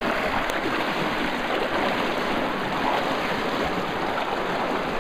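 Shallow river water rushing and splashing steadily.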